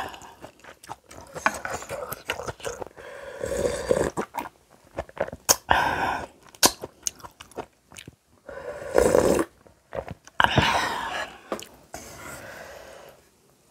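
Close-miked eating sounds: wet chewing and crunching mouth noises with many small clicks, as noodles and kimchi are eaten, and a few louder bursts of a second or so.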